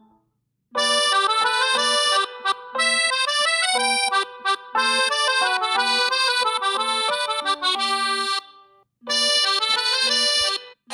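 Huawei P40 Pro (EMUI 12) ringtone playing: a melodic tune with chords, starting just under a second in, breaking off briefly near the end and starting over.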